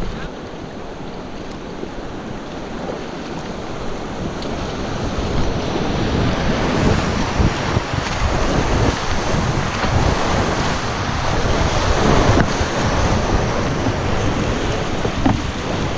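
Whitewater river rapids rushing and splashing around a kayak as it runs through them, with water and wind buffeting the microphone. The rush builds from a few seconds in and is loudest through the middle, as the boat is in the thick of the rapid.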